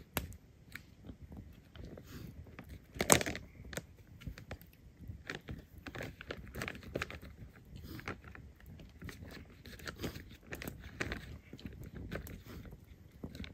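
Spoon stirring a rehydrating dehydrated meal inside its foil pouch: irregular crinkling and scraping, with one sharp, louder crackle about three seconds in.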